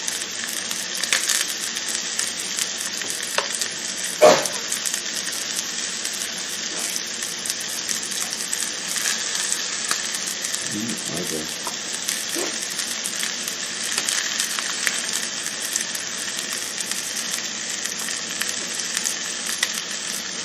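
Angus steak and vegetables sizzling steadily on an electric grill, with one sharp clack about four seconds in.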